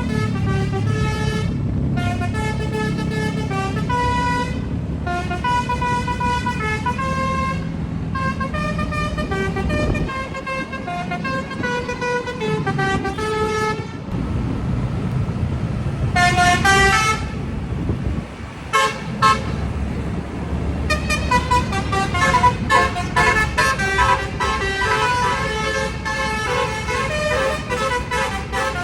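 Basuri multi-tone telolet bus horn playing a melody of quick changing notes over a bus engine running. It breaks off about halfway, gives a few short blasts, then plays a faster, busier run of notes to the end.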